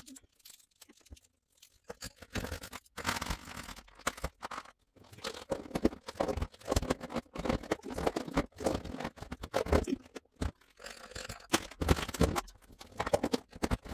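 Clear plastic storage bins of markers being lidded and stacked on a table: a run of plastic clatters, knocks and scrapes starting about two seconds in.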